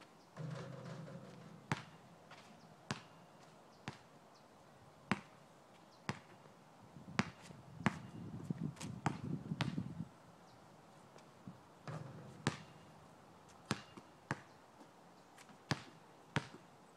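Basketball bouncing on an asphalt court: single sharp bounces about a second apart, in short runs with pauses between them. A low rumble comes and goes, most strongly in the middle.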